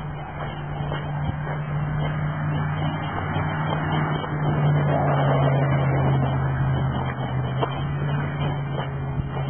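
A steady low mechanical hum, with a few faint crunching footsteps on a gravel driveway.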